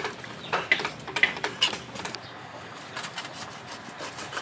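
Knife cutting raw shark meat on a wooden chopping board: several sharp knocks and slicing strokes in the first two seconds, then quieter cutting.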